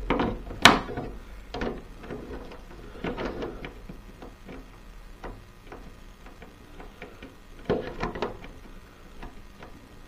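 Scattered clicks, taps and rustles of a plastic RC touring car body shell and chassis being handled and pinned in place. The loudest is a sharp click about half a second in, with a cluster of knocks near the end.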